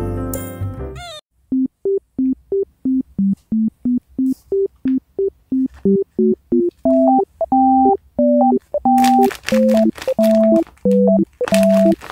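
Light, bouncy background music on synthesizer-keyboard after a short intro jingle ends about a second in: short staccato notes, about two to three a second, with a higher melody joining partway through and a ticking beat added near the end.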